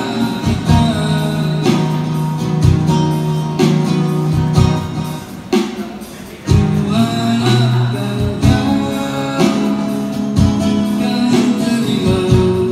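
A man singing live, accompanied by a strummed acoustic guitar. The playing thins out briefly about six seconds in, then picks up again.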